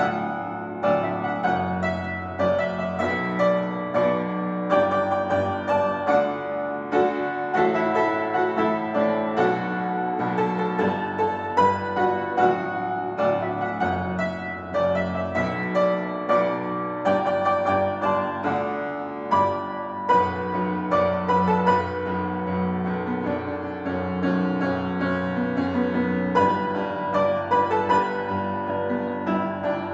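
Solo upright piano played continuously: a driving pop arrangement with a sustained bass under chords and melody struck in quick succession.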